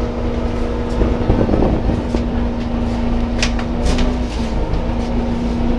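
City bus engine running, heard from inside the passenger cabin: a steady low rumble with a constant hum, and two brief hisses about three and a half and four seconds in.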